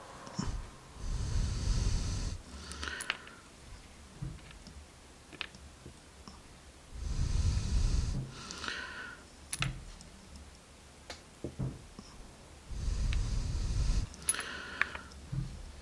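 A person breathing close to the microphone, three slow breaths several seconds apart, with a few small sharp clicks of handled lock parts or tools in between.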